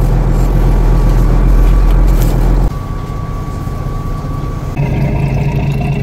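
Fishing boat's engine running with a steady low rumble and a faint hum above it. The sound changes abruptly about three seconds in and again near the end.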